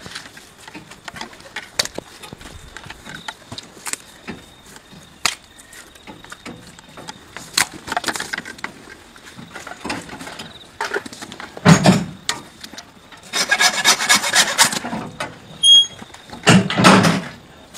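Butchering of hanging beef sides: scattered sharp clicks and knocks of knife and handling work, with a couple of heavier thuds and a quick run of rasping, scraping strokes about three quarters of the way through.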